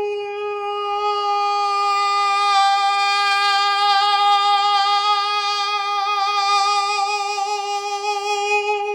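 A man's trained singing voice holding one long open vowel on a single steady pitch. After a couple of seconds it grows brighter and fuller with a slight vibrato, then eases back toward the end. This is a smooth transition from head voice into chest voice and back, made by adding and then reducing chest-voice muscle action while the tone stays round and full.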